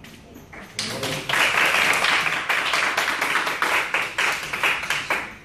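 A small group of people clapping. The applause starts about a second in and dies away near the end.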